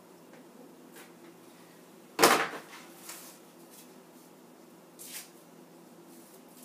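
Cutting tools and fabric handled on a wooden work table: a sharp knock about two seconds in as the cutting tool is set down, a small click a second later, and a short rustle about five seconds in.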